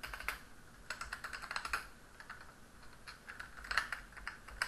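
Computer keyboard typing: several short bursts of quick keystrokes with brief pauses between them.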